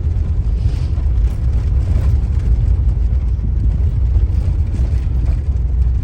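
Car driving over a rough unpaved road, heard from inside: a steady, loud low rumble of tyres and engine.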